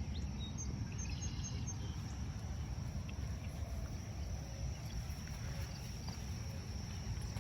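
Outdoor ambience in light rain: a steady low rumble of wind on the microphone, with a few faint high bird chirps in the first two seconds.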